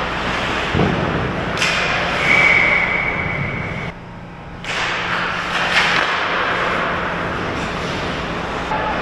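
Ice hockey play in an indoor rink: a steady wash of skates on ice, broken by sharp knocks of sticks, puck or boards about one, two and six seconds in. A held high tone sounds for about a second and a half from around two seconds in, and the sound dips briefly just after four seconds.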